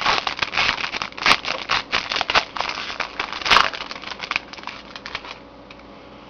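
A wrapper on a pack of trading cards crinkling and being torn open, in quick crackly bursts with two sharper, louder rips, one about a second in and one about three and a half seconds in. It stops a little after five seconds in.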